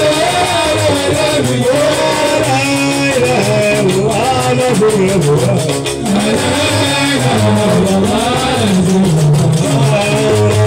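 Live Gnawa music: a guembri plays a low plucked bass line under a man's singing, over a fast clicking rhythm.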